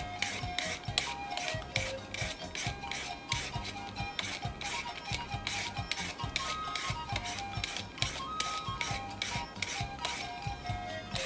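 Green papaya being shredded by hand, rhythmic scraping strokes about three a second, over background music.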